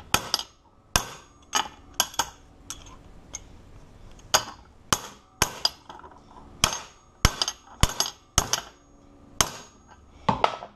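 Hammer striking a cracked padlock: about twenty sharp metallic blows at an uneven pace, roughly two a second, each with a short ring. The lock body is cracked and distorted, so the part being hammered will not go back in.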